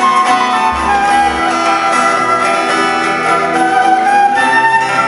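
Instrumental background music: a melody moving over held notes.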